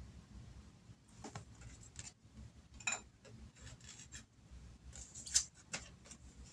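Oracle cards being shuffled and handled: faint rustling with scattered sharper card clicks, the loudest about three seconds in and again about five and a half seconds in.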